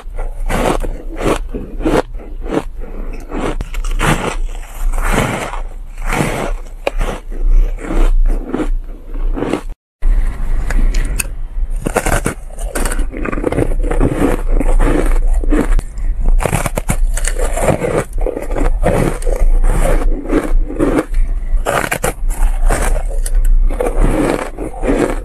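Close-up crunching and chewing of frozen shaved ice bitten off in mouthfuls: a dense, irregular run of crisp crunches, broken by a sudden cut about ten seconds in. A low steady hum runs underneath.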